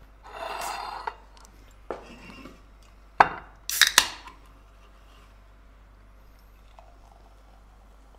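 Metal cutlery scraping and clinking on a ceramic plate as a piece of steak is cut: a short scrape, then a few sharp clinks, the loudest about three to four seconds in.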